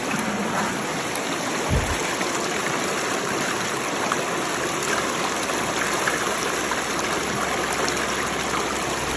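Creek water running steadily over rocks and through a small gold sluice box set in the stream. A single low thump about two seconds in.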